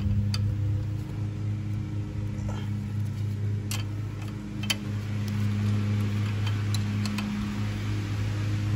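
Steady low hum of a running machine, with a few sharp metal clicks from a hand wrench and bolts around the middle.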